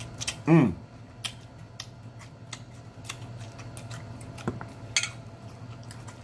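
Close-up chewing and lip-smacking, with irregular wet clicks scattered through, and a short falling "mmm" hum about half a second in.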